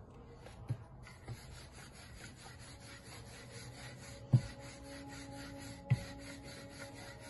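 Wooden rolling pin rolling a small ball of dough out thin on a floured granite countertop: a steady rubbing, rasping sound of the strokes, broken by a few short sharp knocks, the loudest a little past the middle.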